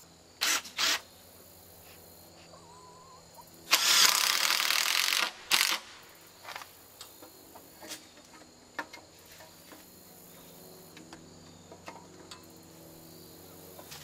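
Cordless drill driving screws into a wooden board: two short bursts, then a longer run of about a second and a half, then one more short burst, with crickets chirping in the background.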